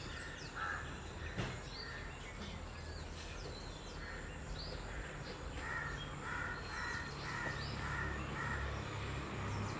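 Birds calling outdoors: a run of short, repeated calls, a little under two a second, in the second half, with scattered higher chirps over a low steady background rumble.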